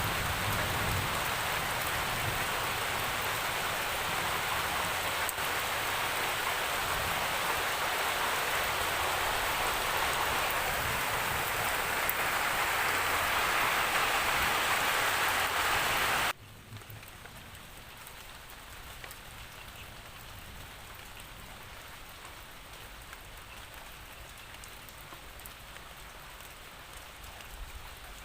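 Steady, heavy rainfall. About sixteen seconds in it cuts abruptly to quieter, lighter rain, which carries on steadily.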